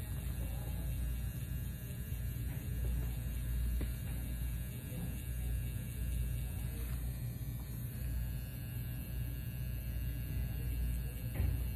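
Permanent-makeup pen machine running with a steady low electric hum as it works the eyebrow.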